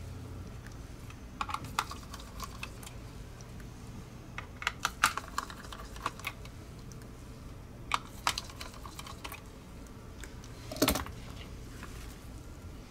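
Light clicks and ticks in a few short clusters as a precision screwdriver backs small screws out of the plastic underside of a Logitech G Pro X Superlight mouse and the screws are set down. The strongest click comes near the end.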